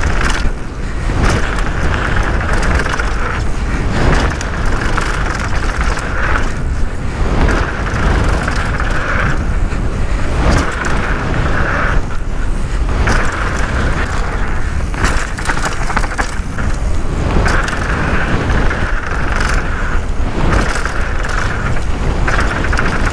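Downhill mountain bike ridden fast down a dirt trail: wind on the microphone, tyres on loose dirt, and the bike rattling over bumps, with a buzzing that comes and goes every few seconds.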